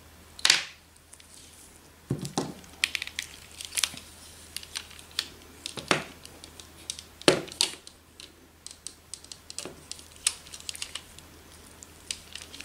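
Scattered clicks, knocks and light rustling of plastic parts as an HP CF219A laser-printer imaging drum unit is handled and its drum cylinder is worked out of the housing. The first sharp tap comes about half a second in, and louder knocks come near two, six and seven seconds in.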